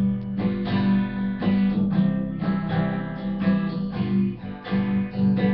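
Acoustic guitar strummed in a steady rhythm, about two strums a second, with no voice.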